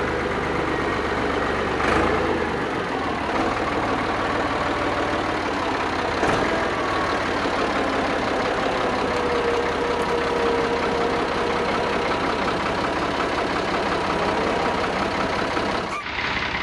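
A vehicle engine running steadily at low speed, with a faint tone that wavers a little. Two brief knocks come about two and six seconds in, and the sound breaks off just before the end.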